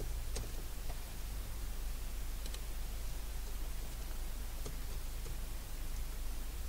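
A few faint, separate clicks from a computer keyboard and mouse while code is edited, over a steady low hum.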